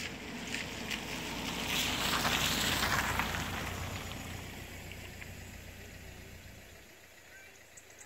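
A vehicle passing by on a road: a rumble and tyre hiss that builds to a peak about two to three seconds in, then fades away.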